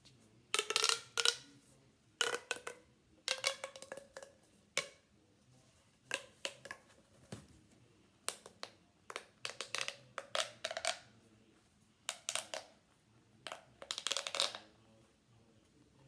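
Yellow plastic pop tube fidget toy being stretched and squeezed, its ribs snapping in quick clusters of clicks and pops about every second, some with a short pitched ring.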